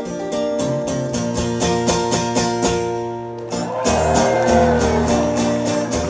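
Solo acoustic steel-string guitar picking a fast, rhythmic instrumental ending to the folk song. About halfway through the picking stops over a held chord, and a gliding pitch rises and falls over it before the rhythm picks up again.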